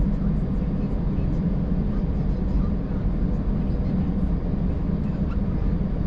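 Steady low rumble of a car driving slowly, engine and tyre noise heard from inside the cabin, with faint scattered ticks.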